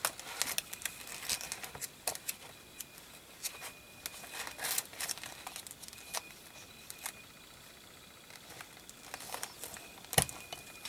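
Paper being handled: sheets and journal pages rustling and shifting, with scattered light taps and one sharper tap near the end.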